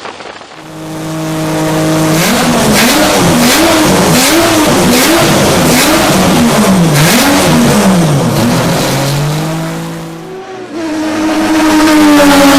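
Mazda Eunos Cosmo's 20B three-rotor turbo rotary engine holding a steady note, then revved up and down over and over with sharp cracks among the revs. Near the end it drops away and a fresh, steady engine note starts.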